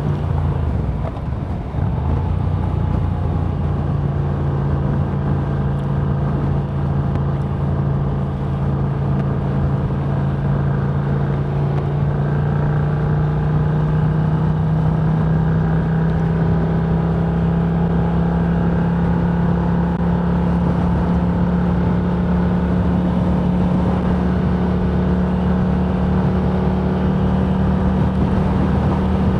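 A vehicle driving: a steady engine hum over road noise, the hum slowly climbing in pitch as it speeds up.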